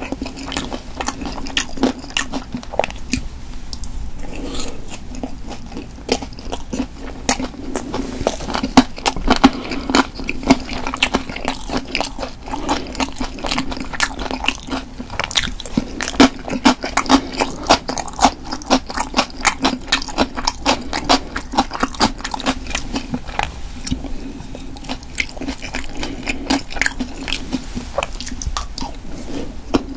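Close-miked chewing of stir-fried pork cartilage: dense, crisp crunches and wet mouth sounds, the gristle snapping between the teeth.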